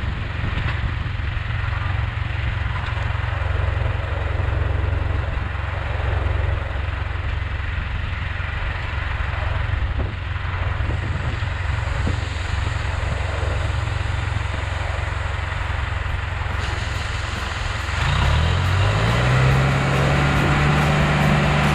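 Heavy vehicle engine running steadily with a low rumble. Near the end its pitch rises and then holds higher as the engine speeds up.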